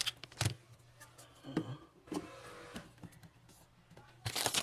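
Plastic light switch plates and their packaging handled: a sharp click about half a second in, a few soft rustles, and a burst of clattering and rustling near the end, over a low steady hum.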